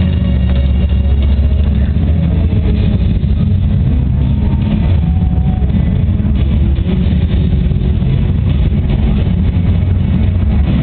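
Loud, steady low rumble of a large indoor arena's background din picked up by a camcorder microphone, with no distinct events.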